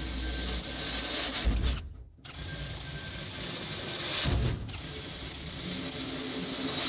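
Handheld power drill boring holes in stainless steel sheet, running with a high steady whine in three stretches broken by short stops.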